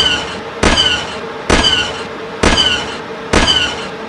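Sci-fi phaser gun sound effect firing repeatedly: five zaps about a second apart, each a sudden blast whose pitch slides downward as it fades.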